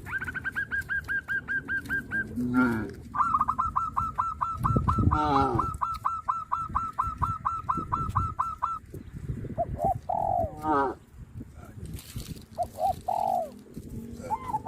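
A bird calling in long runs of rapid repeated notes, several a second, while cattle low with short calls between and after the runs.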